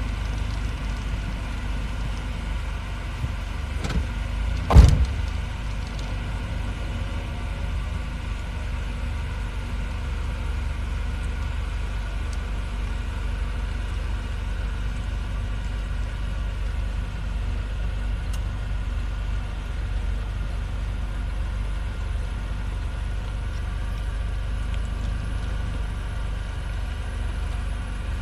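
Steady low rumble of a car driving slowly, engine and road noise heard from the vehicle carrying the microphone. A sharp knock about five seconds in, with a smaller one just before it.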